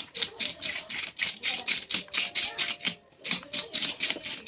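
Potato peeler scraping the scales off a large whole fish: quick rasping strokes, about five a second, with a short break about three seconds in.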